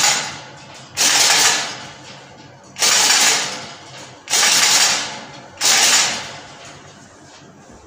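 African grey parrot growling angrily: five noisy, rasping growls, each starting suddenly and fading over about a second, one every second and a half or so.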